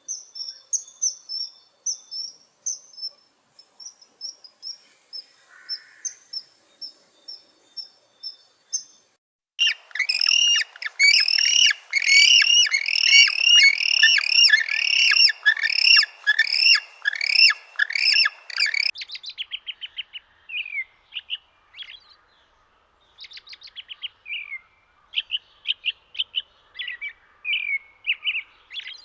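Small birds chirping. First come very high, thin chirps repeated about twice a second. Then, from about ten seconds in, a loud, dense run of quick falling chirps lasts some nine seconds. It thins to scattered chirps near the end.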